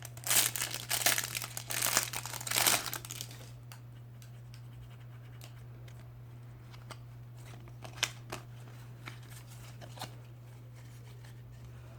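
A foil packet of FIFA 365 trading cards being torn open and crinkled for the first few seconds, then a few faint clicks of cards being handled, over a steady low hum.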